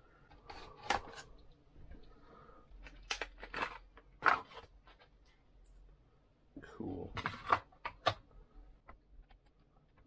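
An NVMe SSD's plastic and cardboard retail packaging being handled and opened: scattered crinkles and sharp clicks, with a few louder snaps.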